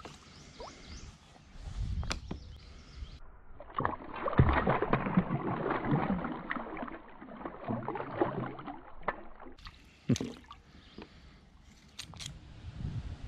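Water splashing and sloshing as a northern snakehead is held in the water and released beside a kayak, starting about four seconds in and lasting about five seconds. A few sharp clicks follow near the end.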